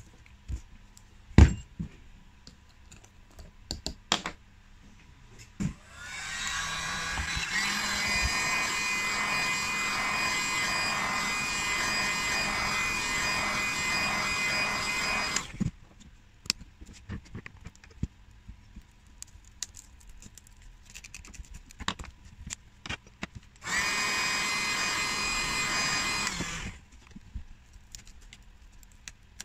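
Electric heat gun blowing hot air over a cracked tablet screen to soften the screen adhesive, a steady blowing noise with a whine. It runs for about nine seconds, stops, and runs again for about three seconds. Before it come a few sharp knocks as the tablet is handled, the loudest about a second in.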